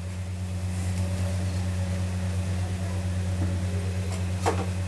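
Potato snack balls deep-frying in a kadai of hot oil, with a faint steady sizzle under a strong, steady low hum. A single clink of the metal slotted spoon against the pan comes near the end.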